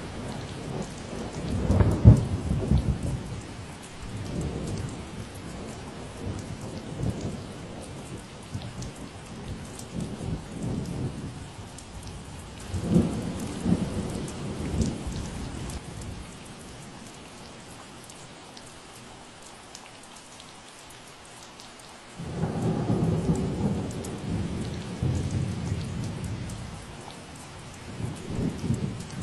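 Steady rain falling, with several rolls of low thunder rumbling through it; the loudest peaks about two seconds in, and another starts abruptly about three quarters of the way through.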